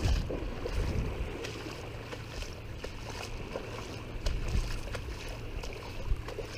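Low steady drone of a distant motorboat engine over water, with a brief gust of wind rumbling on the microphone at the start.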